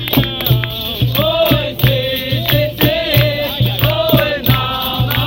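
Capoeira roda music: several voices chanting a song together over a steady drum beat and sharp percussion strokes.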